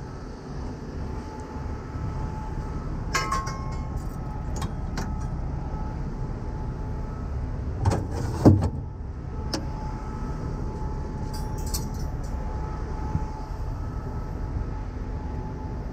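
Metal tools clinking and clanking in a heavy tow truck's side tool compartment, a string of sharp knocks with the loudest clunk about eight seconds in, over the steady low running of an idling truck engine.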